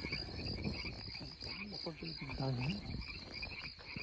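Night chorus of frogs and crickets: steady, pulsing trills running on without a break, over a low rumble.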